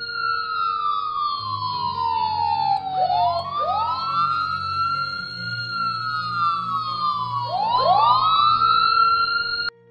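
Police sirens wailing, two or more out of step, each rising quickly and then falling slowly in pitch. They cut off abruptly near the end.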